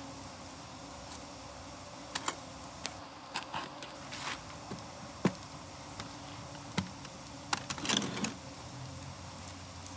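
Wood fire crackling: irregular sharp pops and snaps over a low steady hiss, with a quick cluster of pops about eight seconds in.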